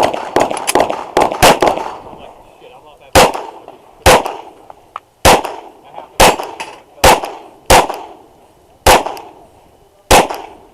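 Glock 34 9mm pistol firing on a USPSA stage: a quick string of about half a dozen shots over the first two seconds, then single shots spaced roughly a second apart, each with a short ringing tail.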